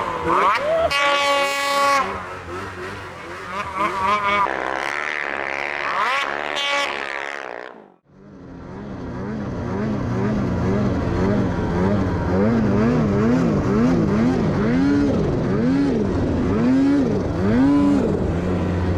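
Snowmobile engines revving up and down. The sound drops out suddenly about eight seconds in, then fades back in to an engine whose pitch rises and falls about once a second.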